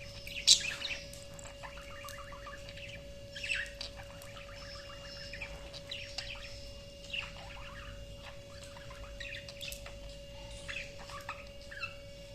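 Pet parrot chirping and calling in short scattered bursts, the loudest about half a second in.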